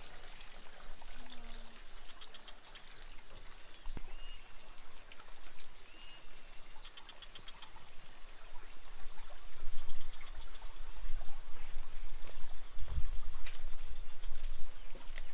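Steady running water, pouring and trickling, with a few short faint chirps about a third of the way in and low rumbling noise that grows louder in the second half.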